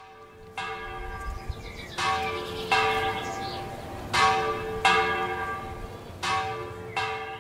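Bells ringing: seven strikes, mostly in pairs, each ringing on and fading.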